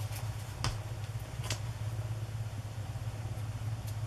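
A steady low hum, with two or three soft paper taps and rustles as a black cardstock penguin cutout, fresh with glue, is set down and pressed onto a sheet of white cardstock.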